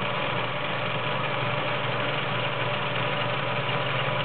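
Kenmore model 1781 all-metal-geared sewing machine running steadily, its needle stitching through fabric.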